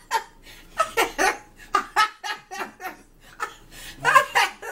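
A woman laughing heartily in several bursts of quick, repeated voice pulses, the loudest burst near the end.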